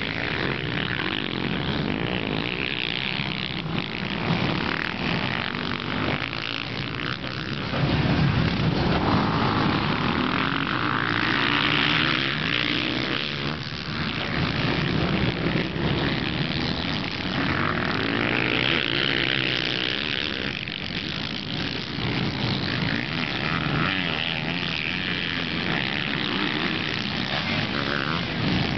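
Several motocross dirt bike engines running hard, their pitch rising and falling as the riders accelerate, shift and back off around the track, with strong rising whines as bikes open up.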